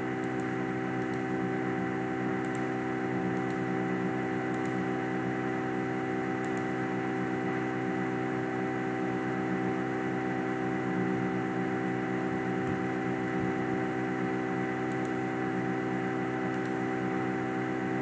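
Steady electrical hum made of several constant tones, the background of a voice recording with no one speaking, with a few faint brief clicks scattered through it.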